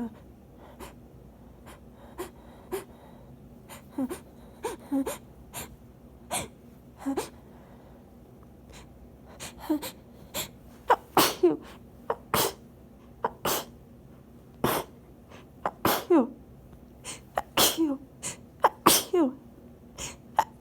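A woman's sneezing fit breaking after a long, held-back tickle: a few short, sharp nasal catches build up through the first half, then from about ten seconds in comes a rapid run of loud sneezes, roughly one a second or faster, each ending in a falling voiced tail.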